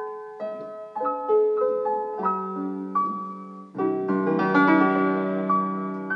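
Piano music playing a gentle melody of single struck notes, then a fuller chord about four seconds in that is held and slowly fades.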